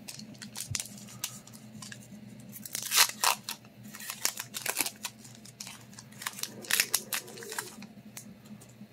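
A Pokémon booster pack's foil wrapper being torn open and crinkled by hand, in irregular crackles, the loudest about three seconds in.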